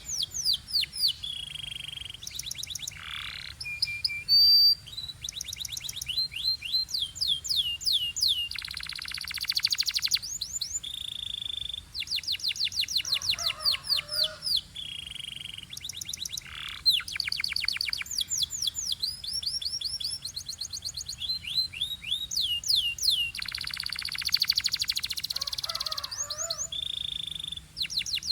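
Canary singing a long, varied song: fast trills of repeated falling notes, short held whistles, buzzy rolls and a few lower gurgling notes. The same run of phrases comes round again about halfway through.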